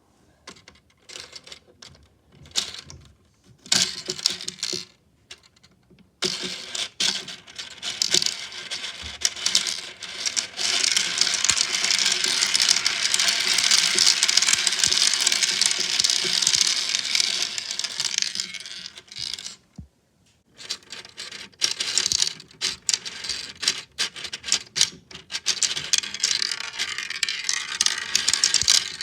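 Small 6 mm balls clicking and rattling through a tiny 3D-printed plastic marble run. Scattered clicks at first, then a dense, continuous clatter from about six seconds in to about nineteen, a brief pause, and scattered clicking again.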